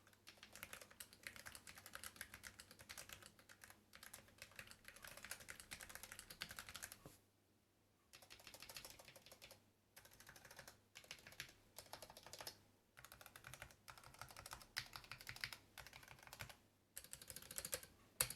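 Typing on a Modecom Lanparty Blade low-profile mechanical keyboard with stock, unlubricated Kailh x Dareu Choc Red linear switches. It comes as runs of rapid key clicks broken by short pauses, with one louder key strike near the end.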